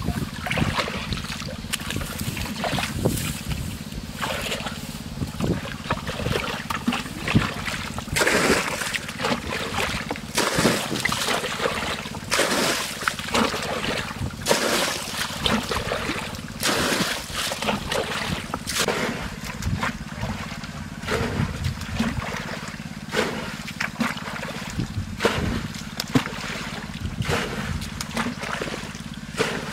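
Water splashing and sloshing over and over as hands work through a shallow ditch to catch fish, with a steady low motor hum underneath.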